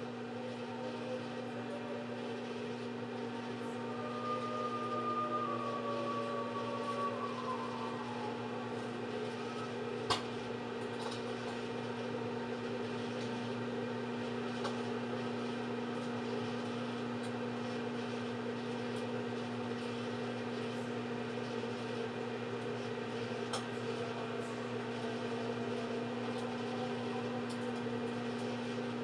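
Microwave oven running: a steady hum with fan noise, and a single sharp click about ten seconds in.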